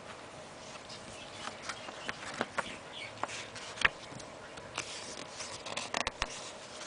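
Handling noise from a CD case and its paper booklet: scattered sharp clicks and soft rustles, the loudest click about four seconds in and a quick pair about six seconds in.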